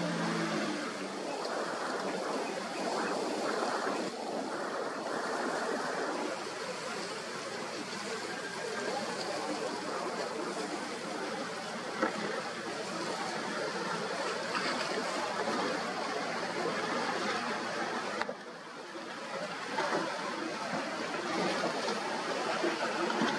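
Steady rushing noise of choppy water and breaking waves, with no clear engine note; the noise dips briefly about eighteen seconds in.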